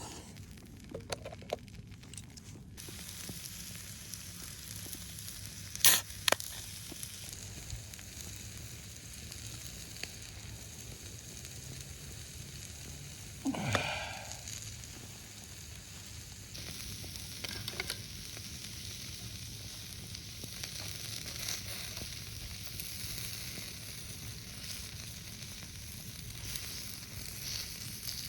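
Seasoned skirt steak sizzling on a small iron griddle plate. The sizzle starts a few seconds in and grows louder about two-thirds of the way through. Two sharp clicks come at about 6 seconds, and a short falling tone about halfway.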